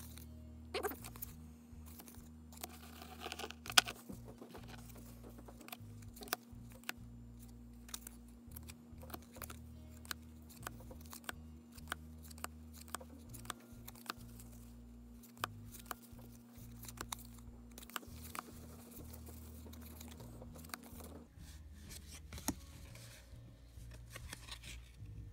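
Baseball cards being handled and flipped through one at a time, each card sliding off the stack with a light snap, about once a second, with one sharp loud snap near the start. A steady low hum runs underneath and stops about three-quarters of the way through.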